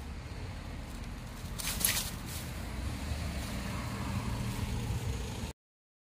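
Low wind rumble on the microphone and passing street traffic during a bicycle ride, with a brief scratchy noise about two seconds in. The sound cuts out abruptly just before the end.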